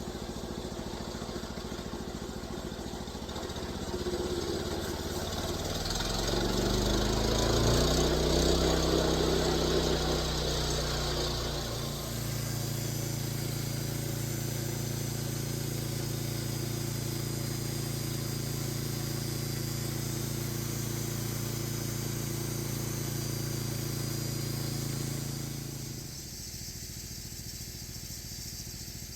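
Portable sawmill's gasoline engine running slow, then revving up about four seconds in. It runs steadily at speed, as when the saw is taken into the log, and drops back in level near the end.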